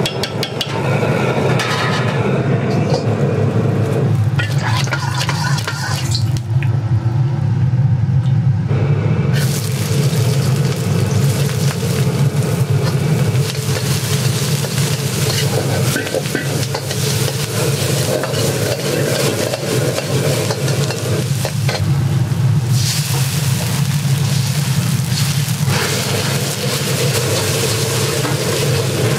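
Food sizzling as it is stir-fried in a hot wok in a Chinese-restaurant kitchen, with a steady low roar underneath and scattered clicks of utensils against the pan.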